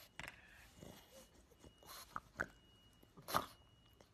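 A pug chewing and smacking its mouth: a string of short, wet clicks and crunches, the loudest about three and a half seconds in.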